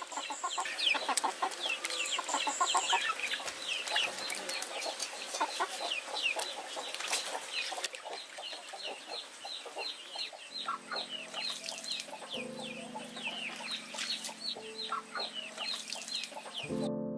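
Chickens: many chicks peeping rapidly in short, high, falling chirps, overlapping without pause, with lower hen clucks in the first few seconds. Low sustained tones come in about ten seconds in.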